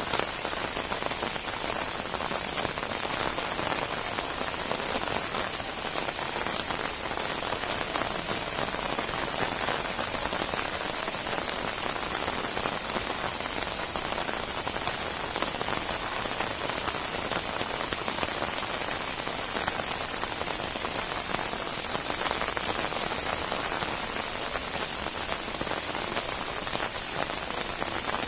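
Steady heavy rain falling on a surface: a dense, even hiss of countless raindrops with no break or change.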